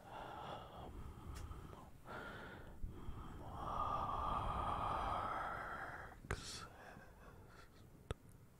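Close-miked breathing into a microphone: a few short breaths, then one long exhale lasting about two and a half seconds in the middle, followed by two sharp clicks near the end.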